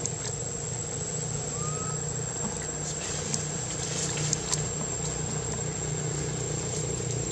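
A steady low mechanical hum, like an engine idling, with a thin high whine over it. A single short rising chirp sounds about two seconds in.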